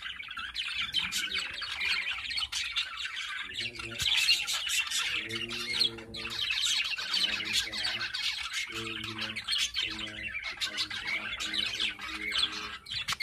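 Budgerigars warbling and chattering without a break, a dense stream of quick chirps and squawks.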